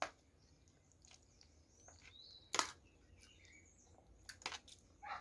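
A few sharp clicks of eating at close range, with faint bird chirps in the background.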